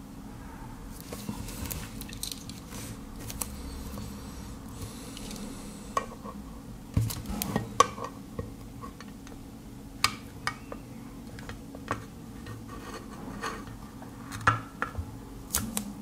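Metal-on-metal clicks, taps and light scraping as a Victorinox Swiss Army knife's can-opener blade is worked against the pull-tab ring and steel lid of a can. The taps are irregular, with a scratchy rustle of handling first.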